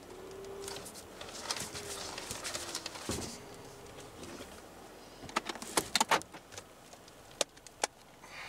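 Hands working at the steering wheel and handling a handheld code reader inside a car: scattered clicks and rattles, with a quick run of sharp clicks a little past halfway and two more near the end.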